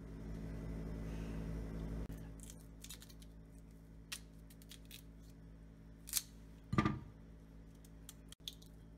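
Knife cutting through a peeled cassava root on a ceramic plate: scattered sharp clicks of the blade, and one louder crunchy chop about seven seconds in as a piece is cut off. A low hum runs for the first two seconds.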